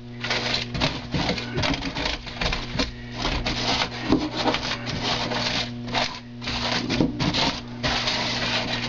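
Extruded construction foam being stabbed and torn out with a hand tool: a continuous run of scratchy, crunching scrapes in quick strokes, over a steady low electrical hum.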